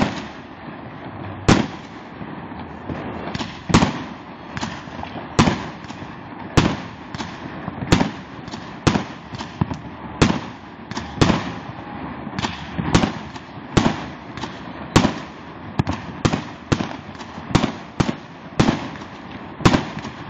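Aerial fireworks going off in a long, irregular series of sharp bangs, often more than one a second, over a steady background din between them.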